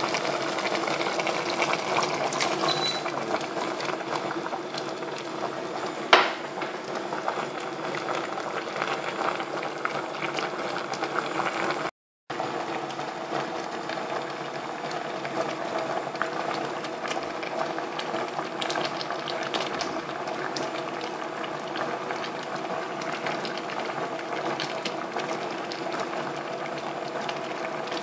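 Pot of pork and lettuce soup boiling steadily, a dense bubbling with many small pops. A single sharp click comes about six seconds in, and the sound breaks off for a moment near the middle.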